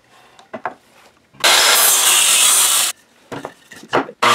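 Corded circular saw cutting crosswise through a 2x4 for about a second and a half, then cutting off suddenly. A few short knocks follow, and the saw starts cutting again near the end.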